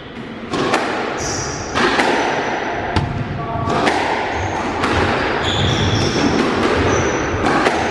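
Squash rally: the ball smacks off rackets and the court walls again and again at an uneven pace, with shoes squeaking briefly on the wooden floor several times.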